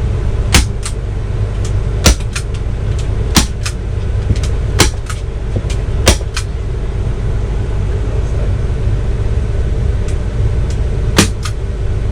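A hammer tapping fasteners into a particle-board RV headboard: sharp knocks, mostly in quick pairs, spaced a second or more apart, with a gap in the middle. Underneath runs the steady low hum of the RV's engine idling.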